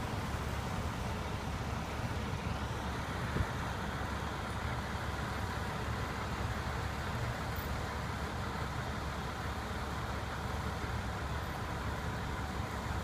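Steady low rumble of motor vehicle noise, with a single short knock about three and a half seconds in.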